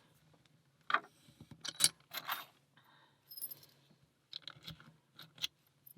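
Key being slid into an Abus T 84/30 padlock and turned, giving a string of sharp metallic clicks and rattles; the key works the lock.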